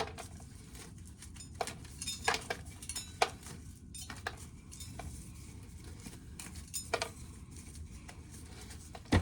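Dry ear corn being shelled: irregular sharp clicks and clinks of kernels, over a steady low rumble of wind.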